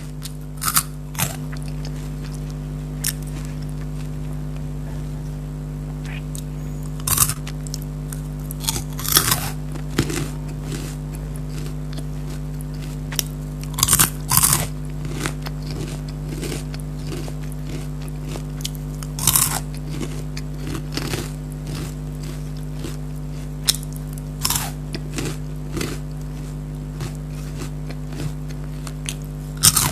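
Crunchy Kurkure corn-puff snacks being bitten and chewed close to the microphone: a dozen or so sharp crunches, some in quick pairs, scattered among quieter chewing. A steady low hum runs underneath.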